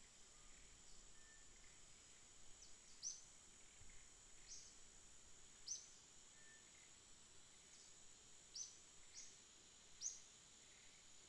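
Faint natural ambience: a steady high insect drone, with a bird giving short, sharp falling chirps now and then.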